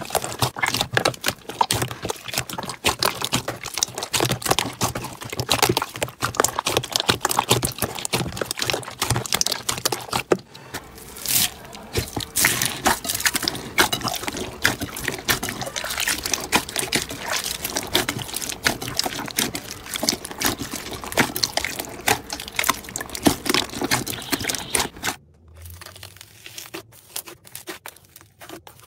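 Hands squeezing and pressing slime, giving dense wet clicking, popping and crackling. The sound changes as a different slime is handled about ten seconds in, and turns much quieter near the end.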